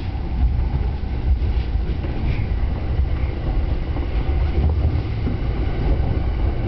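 Yamanote Line commuter train running between stations, heard inside the carriage: a steady low rumble of wheels and running gear.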